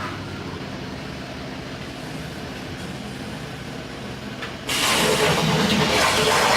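CNC plasma cutter: a steady low machine hum, then about two-thirds of the way in a loud, even hiss starts abruptly as the plasma torch begins to cut.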